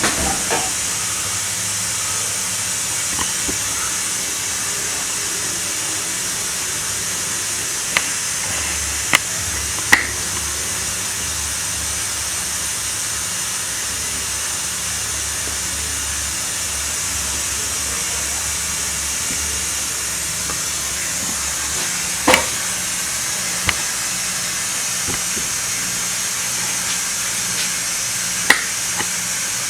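Homemade air compressor running after being switched on, with a steady hiss over a low hum and a few sharp clicks.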